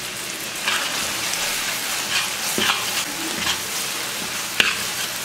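Onion-tomato masala with chilli and turmeric pastes sizzling in mustard oil and ghee in a hot kadai as it is stirred, with several short scrapes or knocks of the spatula against the pan.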